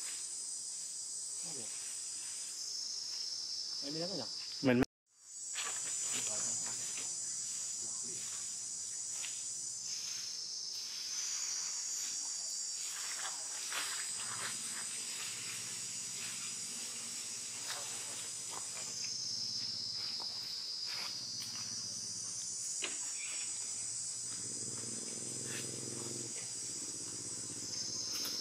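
A steady, high-pitched chorus of forest insects that shifts up and down in pitch every few seconds. About five seconds in, a sharp click and a moment of silence break it.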